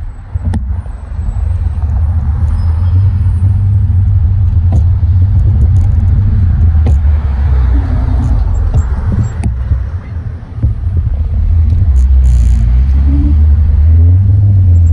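Loud, fluctuating low rumble of wind on the microphone of a moving bicycle, with a few sharp clicks and rattles.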